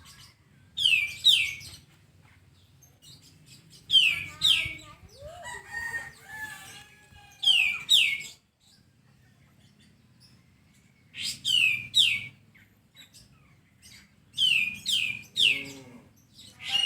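Kapas tembak bird calling: groups of two or three sharp, high notes that each slide steeply downward, repeated every three to four seconds. A softer, lower twittering chatter comes between two of the groups, a few seconds in.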